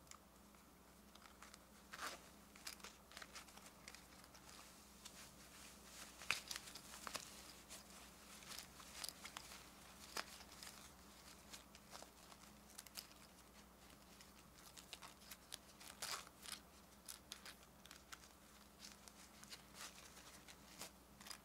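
Faint close handling of a small plush bird-egg toy: soft fabric rustling and a small zipper being worked, with scattered light clicks and crinkles through the whole stretch.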